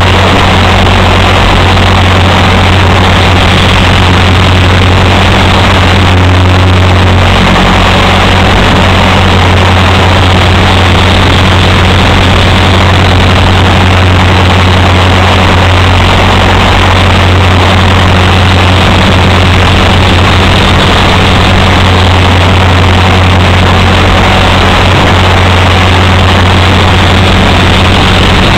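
Align T-Rex 450 RC helicopter in flight: its electric motor, gears and rotor blades running with a loud, steady drone, picked up close by a camera mounted on the helicopter itself.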